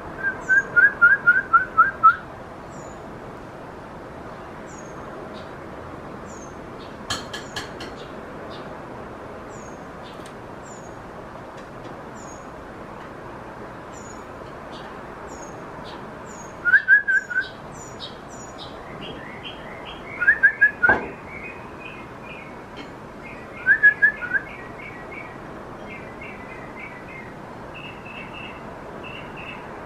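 Birds calling: a loud run of about eight quick notes at the start, then three shorter bursts of the same notes later on, over faint high chirps and a steady background hiss.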